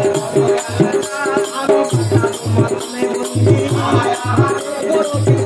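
Bengali folk ensemble music: a hand drum beating a rhythm under a steady held note, with a jingling rattle running over it.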